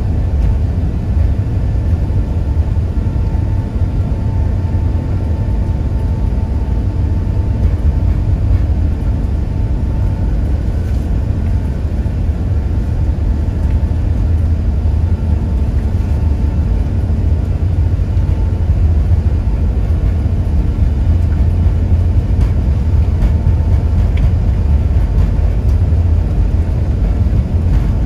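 Cabin noise inside an Airbus A380 rolling on the ground: a steady low rumble from the jet engines and airframe, with a faint steady whine above it, growing slightly louder toward the end.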